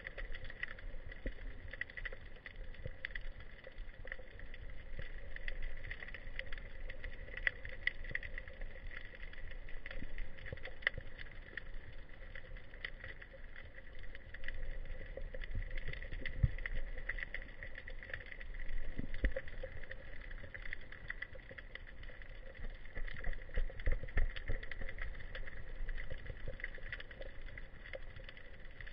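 Underwater ambience picked up through a diving camera's housing: a steady muffled hiss and hum, dotted with frequent crackling clicks and a few dull low thumps.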